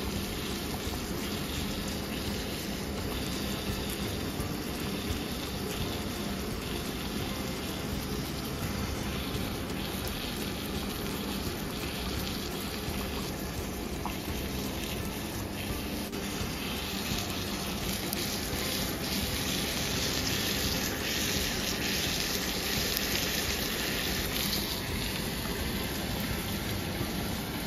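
T-bone steak sizzling steadily in butter and oil in a non-stick frying pan, a continuous hiss with faint crackle that grows slightly brighter past the middle.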